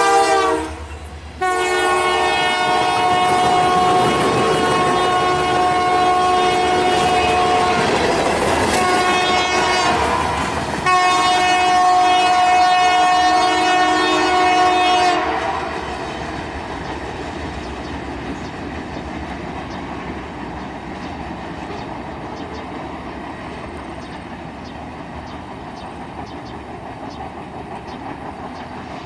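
Freight locomotive's air horn sounding a chord of several tones in long blasts, with a short break about a second in and a dip near the middle, ending about halfway through; typical of a grade-crossing warning. After the horn stops, tank cars and covered hoppers roll past with a steady rumble and wheels clicking over the rail joints.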